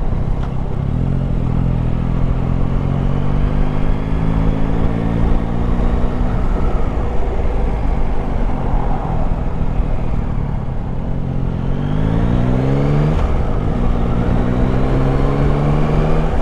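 Yamaha Tracer 9 GT's 890 cc inline three-cylinder engine running at low road speed, heard from a helmet camera. About twelve seconds in the engine note rises, then drops back sharply at a gear change and settles again.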